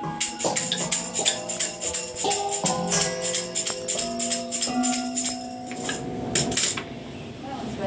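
Wooden xylophone bars struck with a mallet, a loose, irregular run of ringing notes, mixed with jingling and clinking percussion.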